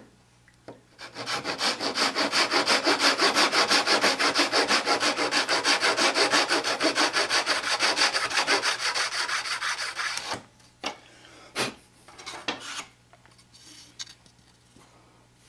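Fine-toothed hand saw, with a metal depth stop glued onto it, cutting a fret slot in a wooden fretboard in fast, even back-and-forth strokes, several a second, for about nine seconds. The strokes stop and are followed by a few sharp knocks.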